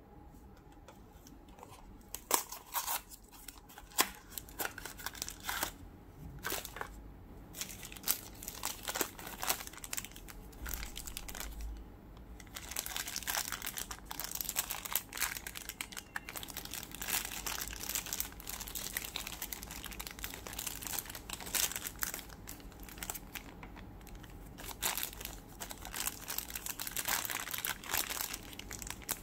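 Hands crinkling and opening a small clear plastic bag holding a miniature figurine, with dense stretches of crinkling in the second half. Before that come scattered clicks and rustles of handling.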